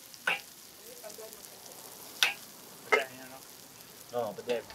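Food frying at a hawker stall with a steady sizzle, broken by three sharp knocks of a cooking utensil.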